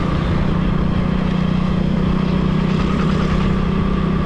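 A vehicle engine running at a steady speed while on the move, a constant hum under dense rumbling wind and road noise on the microphone.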